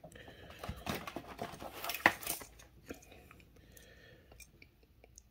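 Plastic packaging rustling and crinkling as plastic model-aircraft parts are handled and lifted out of their plastic tray. There is a sharp click about two seconds in, and the handling grows fainter after about three seconds.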